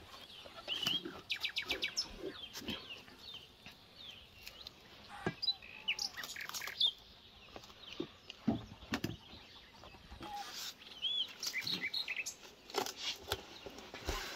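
Small birds chirping and twittering, including a quick run of repeated notes. Among them are scattered crinkles and rustles of plastic cling film being pulled off its roll and stretched over a bowl.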